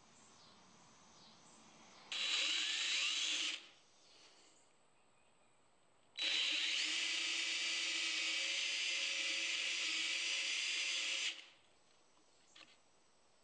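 DeWalt cordless drill running a bit against a walnut wood carving, in two bursts: a short one of about a second and a half, then a longer steady run of about five seconds, each starting and stopping abruptly.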